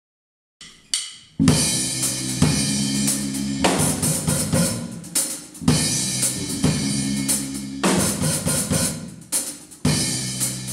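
Electric bass guitar and a Premier drum kit playing a rock groove together, with bass drum, snare and cymbal crashes. The playing starts about half a second in, and the phrase comes round with a loud crash about every four seconds.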